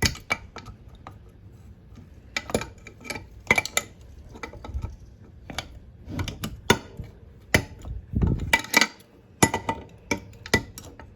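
Metal hand tool working on a two-stroke lawnmower engine's metal parts: irregular sharp clinks and clanks, a few in quick clusters, as a stubborn part is worked loose.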